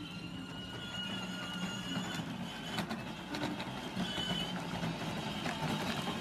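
Battery-powered children's ride-on toy Jeep driving, its electric motors and gearboxes whining steadily while the plastic wheels rumble over brick pavers, growing a little louder as it comes closer.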